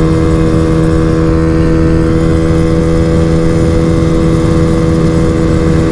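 Honda Fan 125's single-cylinder four-stroke engine, fitted with a Fortuna exhaust, running steadily at high revs under full throttle while the bike is ridden. The pitch holds steady throughout.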